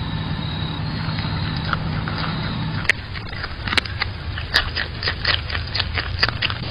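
A groundhog biting and chewing a raw carrot right at the camera's microphone: sharp, irregular crunches, about three a second, from about three seconds in.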